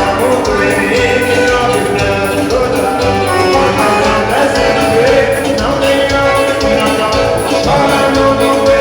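Band playing dance music, with a singer's melody over a steady beat.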